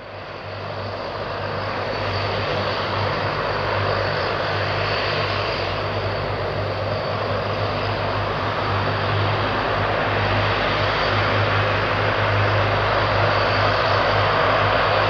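The twin Rolls-Royce Tyne turboprop engines of a Transall C-160D running as the aircraft rolls along the runway: a steady drone with a low hum and a high whine. It fades in over the first couple of seconds and grows slightly louder near the end.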